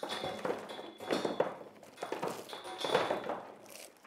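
Stone scraping and knocking against stone in several rough bursts as a block is worked loose from an old rubble wall.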